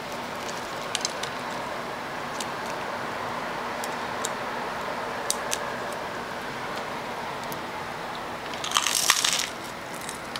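Steady background hiss with a few faint ticks, then near the end a short crackly crunch as a piece of crusty homemade bread is bitten.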